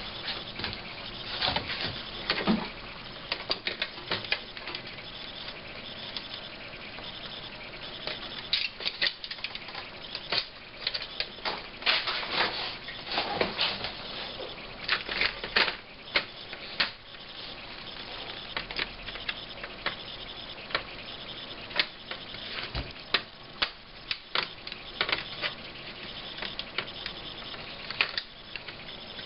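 Irregular scrapes, clicks and taps of hand work on a laptop's plastic case, coming in uneven clusters with short scraping strokes.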